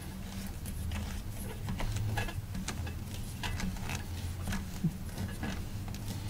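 Mounting nut of a push-button basin drain being hand-tightened under a sink: scattered light clicks and scrapes of the nut's threads and fingers turning it, over a low steady hum.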